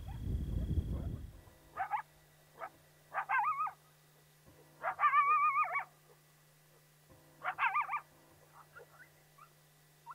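Electronic predator caller playing whimpering canine distress calls: four louder calls with a quick wavering pitch, a second or two apart, then fainter ones near the end. A low rumbling noise fills the first second and a half.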